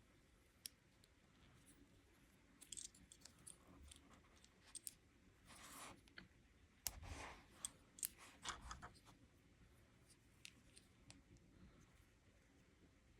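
Faint, scattered clicks and rustles from a LEGO minifigure mystery package being handled and opened, busiest in the middle of the stretch.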